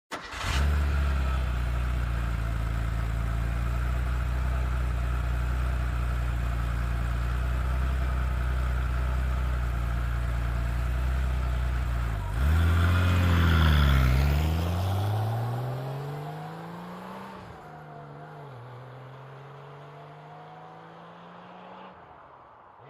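Car engine starting and settling into a steady idle. About twelve seconds in it revs, then climbs in pitch through two gear changes while fading away, as the car drives off.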